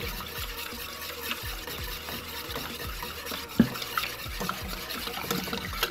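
A whisk stirring a thick dressing in a bowl, with soft wet clicks and one louder knock about three and a half seconds in.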